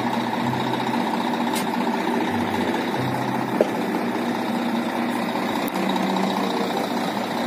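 Diesel engine of a Volvo tipper lorry running steadily while its tipper body is raised hydraulically to dump the load.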